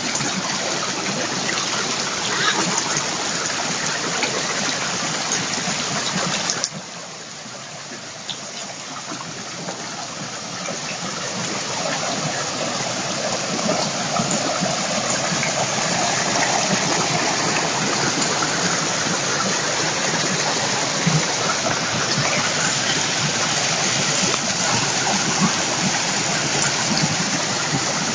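Mountain stream rushing over rocks, a steady rushing of water. It drops suddenly about seven seconds in, then swells back up over the next several seconds and holds steady.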